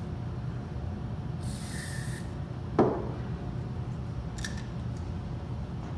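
Steady low hum of a running Parker hose crimp machine. A short hiss comes about a second and a half in, and a single sharp metallic clank just under 3 seconds in, with a small click later.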